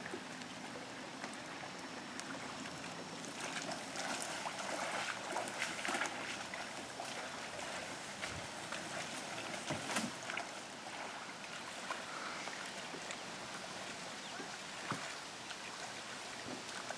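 Water splashing and lapping, steady throughout and busier with crackly splashes from about three to eleven seconds in, with a little wind on the microphone.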